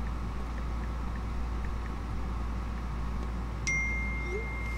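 Steady low hum of electrical equipment. About three-quarters of the way in, a high electronic tone switches on suddenly and holds steady.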